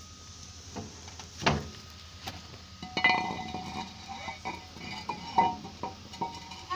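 A steel cylinder liner being fitted into the bore of a Caterpillar 3512 engine block: a single knock about one and a half seconds in, then a run of metallic clinks with a ringing tone as the liner knocks against the block while it is worked into the bore.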